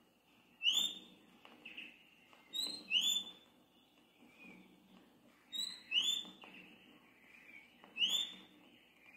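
A songbird calling four times, each call a short high note followed by a louder, clear whistle that sweeps upward, over a faint steady background of distant bird twittering.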